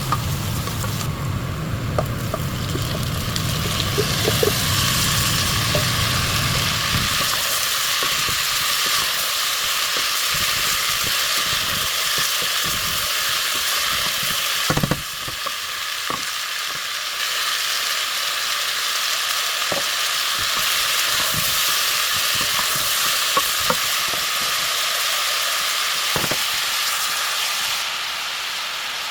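Chopped vegetables sizzling and crackling as they fry in a pot, with a few sharp knocks of a utensil against it. A low hum stops about seven seconds in.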